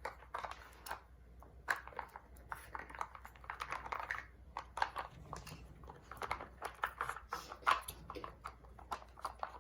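Dogs nosing and pawing at a plastic puzzle toy: irregular clicking and rattling of its lids and pieces.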